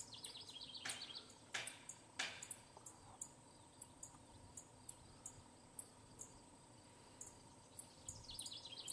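Faint, high-pitched insect chirping repeating about twice a second, with a rapid trill near the start and again near the end. Three short rustling noises come in the first few seconds.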